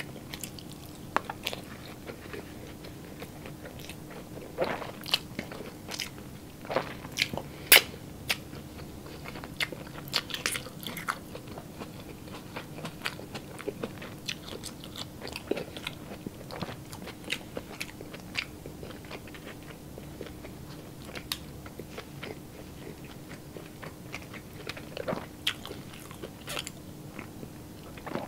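Close-miked mukbang eating: a person chewing and biting fried rice, salted egg and tomato slices, with wet mouth clicks and smacks scattered throughout. The loudest bites come about five to eight seconds in and again near the end, over a faint steady hum.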